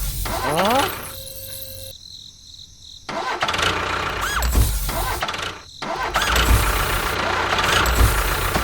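Motor or engine noise in several short stretches cut together: a rising whine like an engine starting up near the beginning, then loud steady running from about three seconds in, broken briefly a little before six seconds.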